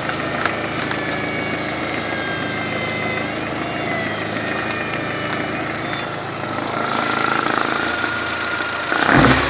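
Engine running steadily with a low hum, which the uploader calls a bad sound. A louder low thump comes near the end.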